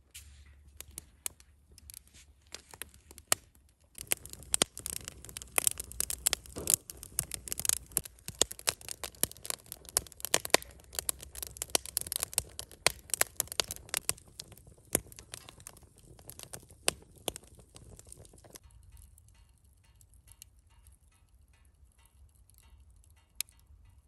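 Wood fire of pine cones and softwood lumber crackling and popping, with sharp snaps coming thick and fast over a low rumble, then thinning to scattered pops about three-quarters of the way through.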